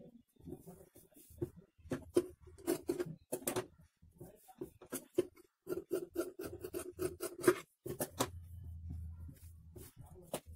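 Scissors snipping and cloth being handled at a sewing table: a run of irregular clicks and rustles.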